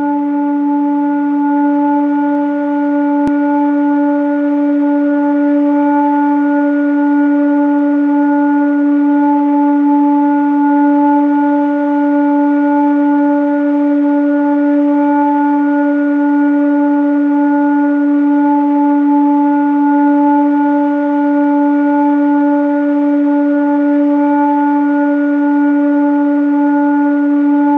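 Sound-healing drone: a single sustained low tone with fainter overtones above it, gently swelling and pulsing.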